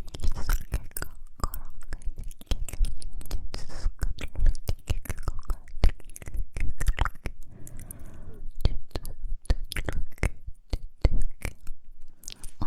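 ASMR mouth sounds made close to the microphone: a dense run of wet clicks and lip smacks, with a breathy, whisper-like stretch about two-thirds of the way through.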